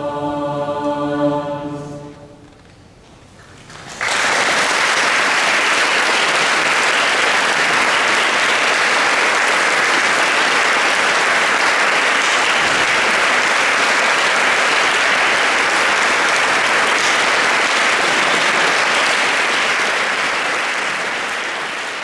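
A mixed youth choir of girls' and boys' voices holds its final chord, which stops about two seconds in and dies away in the hall's echo. About four seconds in, the audience bursts into steady applause, which fades out near the end.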